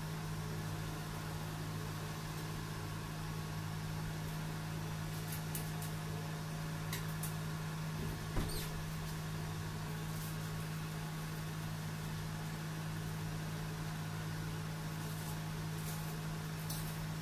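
Steady low hum with a few faint ticks and one short soft knock about eight seconds in.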